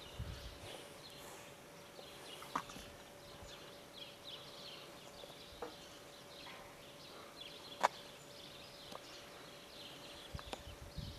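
Quiet rural ambience: small birds twittering, with a few sharp clicks, the loudest about eight seconds in, and a faint steady hum. Low rumbles close to the microphone at the very start and near the end.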